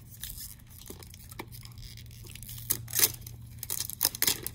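Wrapper being torn and peeled off a plastic toy capsule by hand, in a series of short rips and crinkles, the loudest about three seconds in.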